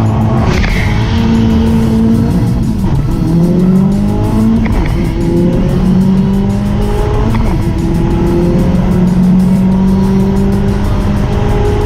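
Turbocharged Honda four-cylinder race car accelerating hard, its engine pitch climbing and dropping back several times as it shifts up through the gears.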